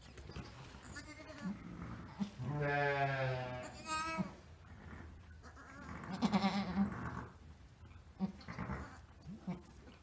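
Ewe in labour bleating several times, with one long, low call about two to four seconds in, while she lies straining to deliver a lamb.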